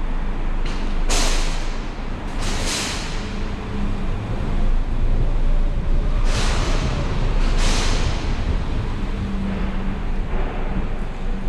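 Car driving on wet city streets in drizzle: a steady rumble of road and engine noise, broken by four loud hissing swishes in two pairs.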